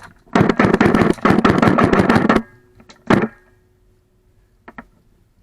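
Airsoft guns firing on full auto: a long rapid burst of about two seconds, a short burst about three seconds in, then a couple of single shots near the end.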